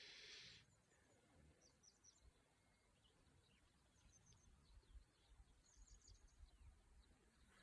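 Near silence with faint, scattered high chirps of small birds at dawn. There is a brief soft hiss at the very start, and soft low rumbles underneath.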